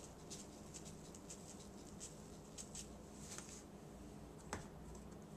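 Faint soft taps and pattering as garlic powder is shaken from a large plastic spice shaker into an open plastic bag, with one sharper click about four and a half seconds in.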